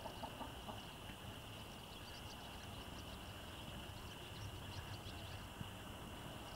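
Quiet rural yard ambience: a steady high-pitched drone throughout, with a few faint high chirps in the middle and a low rumble underneath.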